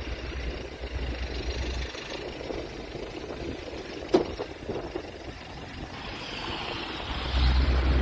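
Wind rumbling on the phone's microphone, easing in the middle and coming back louder near the end, over a faint steady hum of the Airbus A380's jet engines as it taxis onto the runway in the distance. A single sharp knock about four seconds in.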